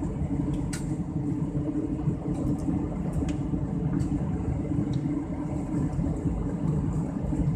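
Steady drone of an airliner cabin in flight: jet engine noise and airflow heard from a window seat, with a few faint light ticks.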